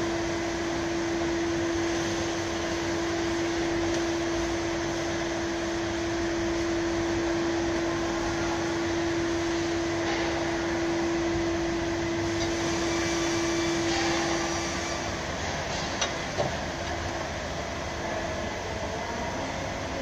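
Steady machine hum with a constant tone that stops about fourteen and a half seconds in, then a couple of light knocks.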